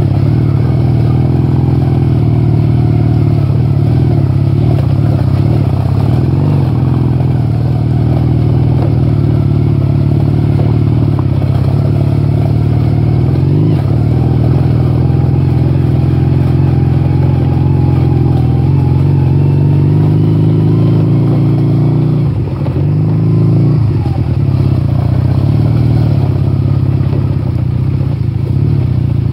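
Motorcycle engine running steadily as the bike rides along a dirt track, heard from the rider's seat. The engine note rises slightly, then eases off briefly about two-thirds of the way through before picking up again.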